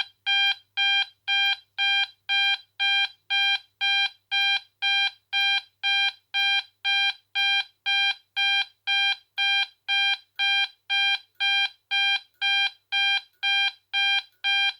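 AE&T T105N fire alarm sounder sounding one of its 32 tones: a single steady pitch pulsing on and off about twice a second.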